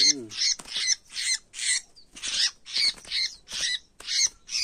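Newly trapped red-whiskered bulbul giving harsh, scolding squawks in quick succession, about two a second, the alarm of a freshly caught wild bird being handled.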